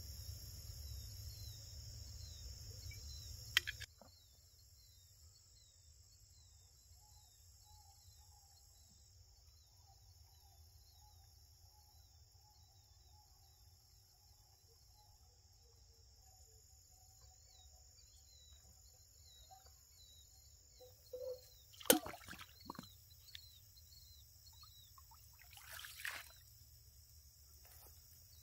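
Insects chirping steadily: a high, even trill with a quicker chirp repeating over it. A low rumble underneath stops suddenly about four seconds in. Near the end come a few short knocks and rustles of gear being handled.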